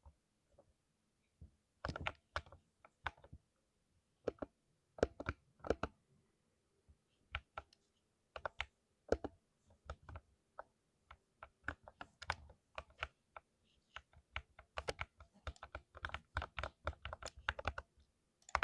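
Keystrokes on a lubed 60% mechanical keyboard, typed irregularly: scattered single presses at first, then quicker, denser typing over the last few seconds.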